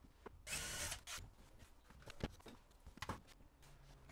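Faint handling noise from a power drill being moved about: a short rustle about half a second in, then a few light clicks and knocks.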